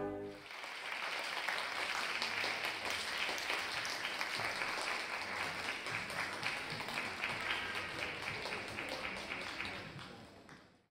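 Audience applauding, an even patter of many hands clapping that fades away near the end. It starts just as the final held note of a brass solo cuts off.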